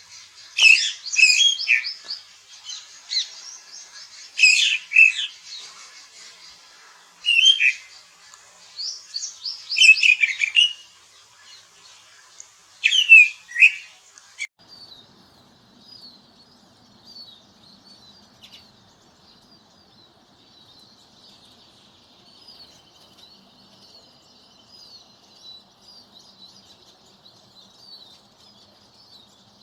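Birds singing: loud, quick chirping phrases come in bursts every second or two. About halfway through, the sound switches abruptly to a fainter, busier chorus of many small chirps over a faint low hum.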